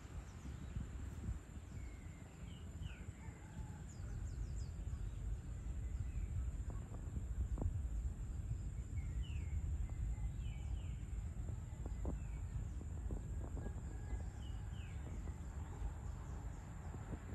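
Outdoor evening ambience: a steady low background rumble, with small birds giving short chirps in a few brief runs and an occasional faint knock.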